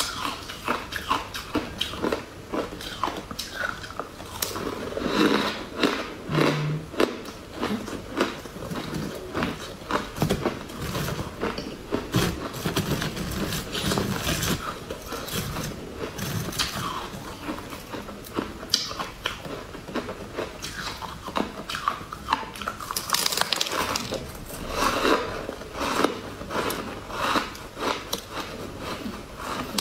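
Frost-coated pink ice chunks being bitten and crunched between the teeth: a dense, irregular run of crisp cracks and crunches throughout.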